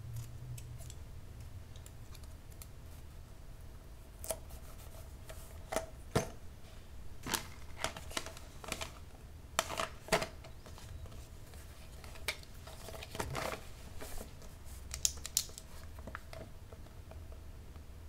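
Scissors snipping in short, irregular cuts, recorded close up. The snips start about four seconds in and stop shortly before the end, over a faint steady hum.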